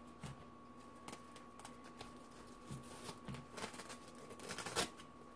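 Quiet rustling and small clicks of hands tucking and adjusting a quilted fabric wrap around a cat, with one sharper click near the end.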